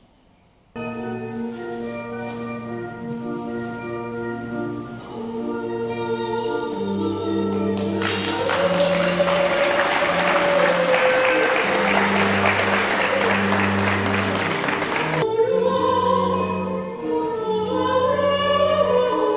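Church music during a Mass: held chords over a low bass line begin about a second in and are joined by singing. A dense burst of noise covers the music from about 8 to 15 seconds in, and a singing voice stands out near the end.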